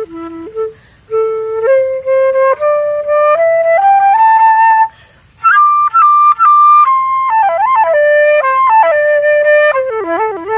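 Solo flute playing an improvised melody: the notes climb step by step, break off briefly about five seconds in, then return on a high held note with quick wavering ornaments before falling away near the end.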